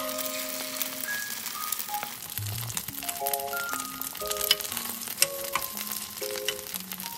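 Egg batter with chopped japchae sizzling in a little oil in a four-well egg frying pan, a steady hiss with small pops. A light background music track with short plucked notes plays over it.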